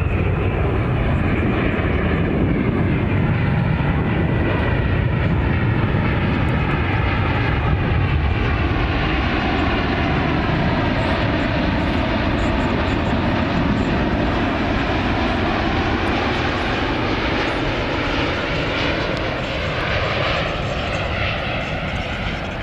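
Boeing 787 Dreamliner with GEnx-1B engines on final approach, gear down, passing low overhead: a loud, steady jet roar at approach power, with a slow whooshing sweep in its tone as it goes over, easing slightly near the end.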